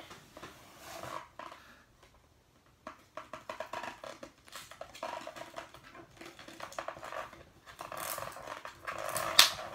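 Scraping, rustling and squeaking of plastic and cardboard packaging being worked open by hand, with a sharp snap about nine seconds in.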